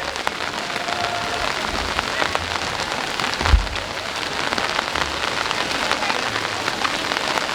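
Heavy rain falling: a steady hiss with many small separate drop hits, and a single low thump about three and a half seconds in.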